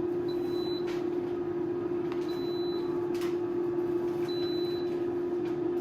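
Instant Vortex Plus air fryer running with a steady hum while its high-pitched beep sounds three times, about two seconds apart, signalling that the cooking cycle is done.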